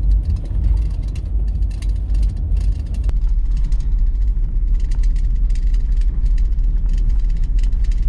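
Chevrolet Astro van driving on a snow-covered road: a steady low engine and road rumble.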